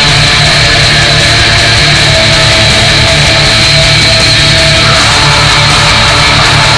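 Brutal death metal / goregrind played loud and dense, with a fast, pounding low-end rhythm; the upper texture thickens about five seconds in.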